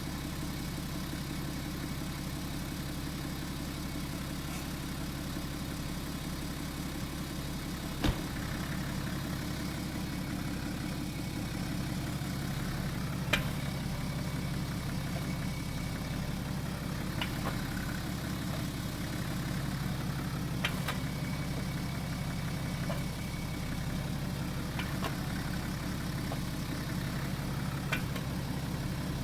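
BMW F10 running steadily, with one sharp knock from the front about eight seconds in, the loudest sound, and a few fainter clicks later. The owner hears this knock only when the car is hot, once after a change of direction and braking.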